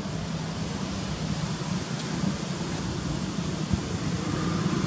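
Steady outdoor background noise: an even rush with a constant low hum underneath and no clear event standing out.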